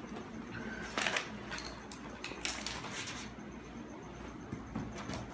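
Paper rustling and light handling sounds as books and notebooks are moved and their pages lifted, in short bursts about a second in and again near the middle.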